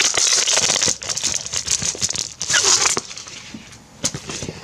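Plastic clear-file sleeves and their wrapping crinkling as they are handled, in two louder spells with softer clicks and taps between and after.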